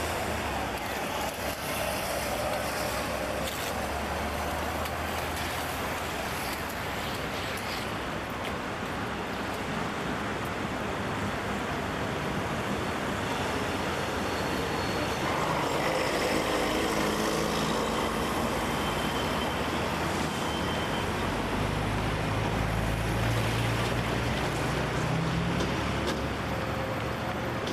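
City street traffic: cars and other motor vehicles passing in a steady wash of road noise, with one engine rising in pitch as it accelerates near the end.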